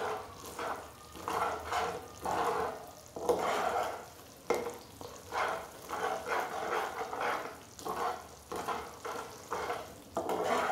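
Metal ladle stirring and scraping through sugar melting in a little water in a pan on the stove, in repeated strokes about two a second, over the light sizzle and bubbling of the syrup. The sugar is only being melted into a light syrup, not cooked to thread stage.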